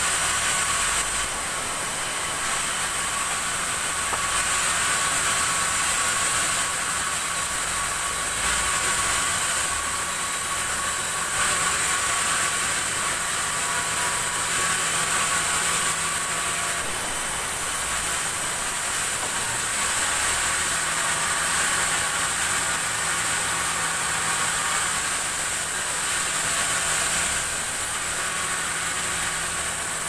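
Sawmill band saw running steadily with a constant high whine, its sound swelling and easing every few seconds as it cuts through black acacia logs.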